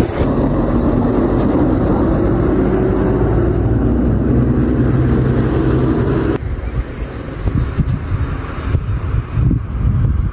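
A motor runs with a steady hum for about six seconds. Then the sound changes to gusts of wind buffeting the microphone.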